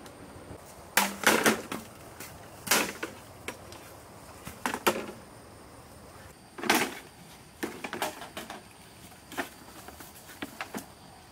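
Irregular sharp cracks and crunches of dry twigs, leaves and bamboo poles being stepped on and handled, coming one or a few at a time every second or two.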